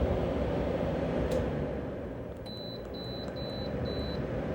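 Frigidaire air conditioner/heat pump's control panel beeping four short times in quick succession as its buttons are pressed to set it to heat, over the steady noise of the running unit. A single click comes about a second in.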